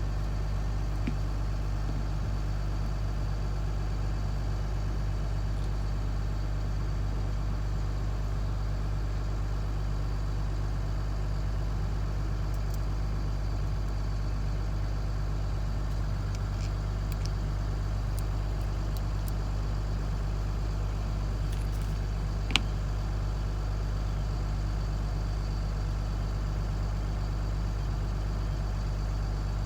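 Steady low hum of an idling engine, with a few faint light clicks and one sharp click about 22 seconds in.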